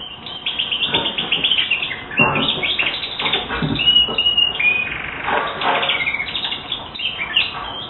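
Domestic canary singing: fast trills of rapidly repeated high notes broken by a few held whistled notes.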